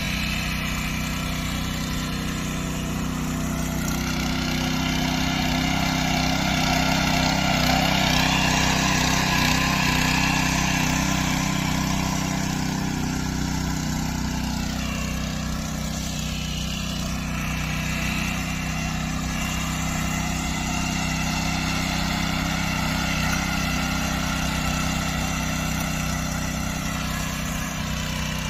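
Small engine of a power weeder (rotary tiller) running steadily under load as its tines churn soil. Its pitch dips and recovers briefly around the middle.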